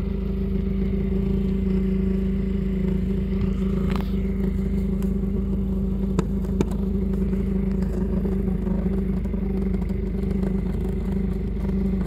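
Failing heater blower motor of a 2019 Skoda Superb running with a steady droning hum, with a few light knocks between about four and seven seconds in. The motor is worn out; the owner says it intermittently cuts out and at times makes a terrible noise.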